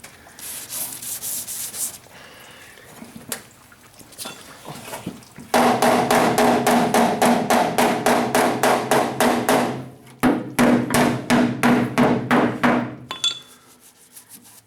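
Rapid tapping on a truck bed's sheet metal, about four strikes a second in two runs with a short break between, the panel ringing under the blows while the dent is worked.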